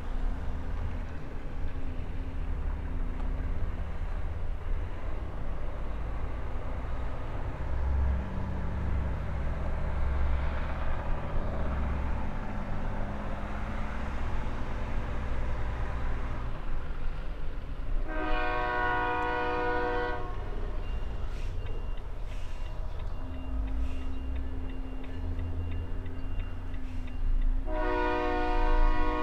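Heavy truck's diesel engine running at low speed, heard from inside the cab during slow maneuvering. A loud multi-tone horn sounds for about two seconds past the middle and starts again near the end.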